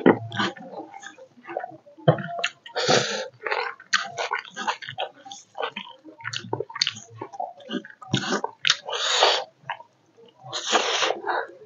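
Close-miked eating by hand: wet chewing and lip-smacking with many small clicks, broken by several breathy slurps, each about half a second to a second long.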